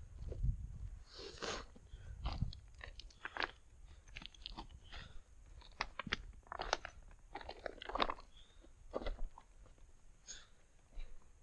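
Footsteps crunching on loose scree as a hiker walks downhill, in irregular steps about one or two a second.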